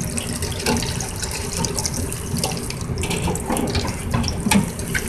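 Battered chicken pieces deep-frying in hot oil in a wire fryer basket: steady sizzling and crackling, with many sharp pops and clicks through it.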